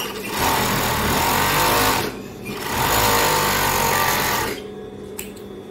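Overlock sewing machine stitching a strip of rigid woven fabric in two runs of about two seconds each, picking up speed at the start of each run, with a short stop between them.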